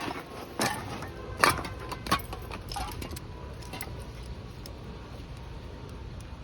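Several sharp metallic clinks and rattles in the first three seconds, like hand tools or small metal parts being handled and set down, over a steady low background rumble.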